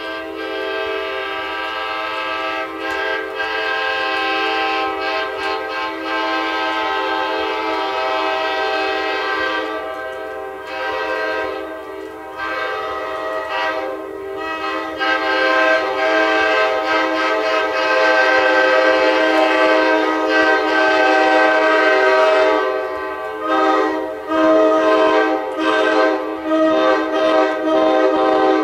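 Nathan K5LA five-chime air horn sounding its chord in long held blasts with a few short gaps, then several quick blasts near the end before it cuts off.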